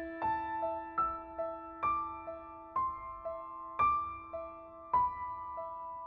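Slow, sad piano background music: a new chord struck about once a second over a held low note, with a higher note repeating softly between the chords.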